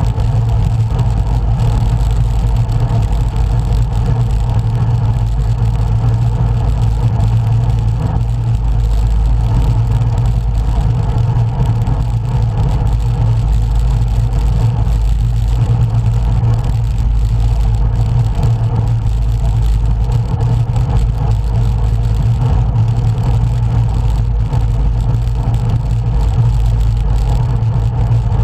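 Steady low rumble of riding noise, wind and road roar on the microphone of a road bike in motion, unbroken and even in level.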